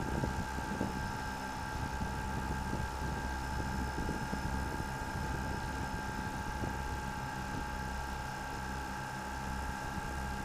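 A quadcopter drone's rotors running with a steady high whine over a low noisy hum.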